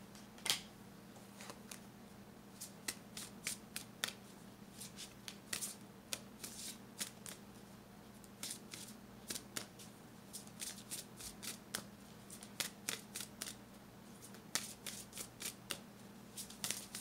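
Angelarium oracle cards being shuffled by hand: a long run of quick, irregular card slaps and flicks. A faint steady hum lies underneath.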